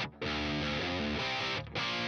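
Background music with a steady run of notes, broken by short stops right at the start and near the end.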